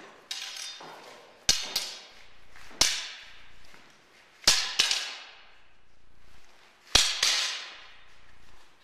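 Arming swords clashing in sparring: about six sharp blade strikes, several in quick pairs, each trailing a long echo in the gymnasium.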